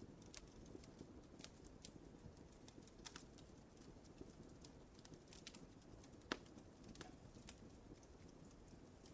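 Wood fire burning in a fireplace: a soft low rumble of flames with irregular crackles and small pops, and one louder pop about six seconds in.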